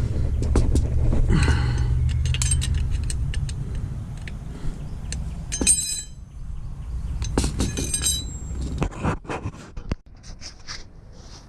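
Metal tools and suspension parts clinking and clanking, with several ringing metal-on-metal hits among scattered clicks, over a low rumble that drops away near the end.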